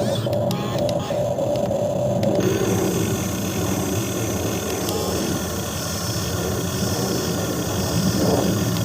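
RC excavator's electric motor and hydraulic pump running steadily with a constant whine, a higher hiss joining in a few seconds in as the machine works under load.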